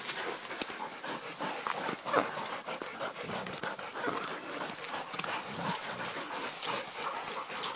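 Pig-hunting dog panting hard, with scattered short clicks and rustles.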